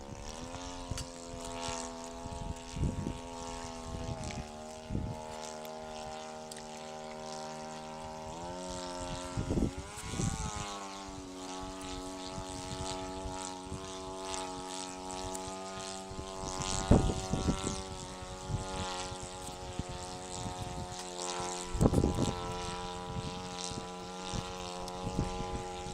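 Radio-controlled model airplane's engine droning in flight, its pitch rising and falling as the throttle and the plane's distance change, with gusts of wind buffeting the microphone.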